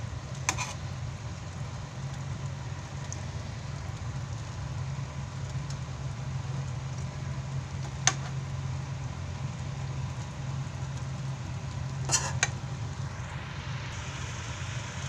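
A steady low rumble with a metal spoon clicking against a metal cooking pan a few times: once sharply about eight seconds in, and a quick run of clinks around twelve seconds.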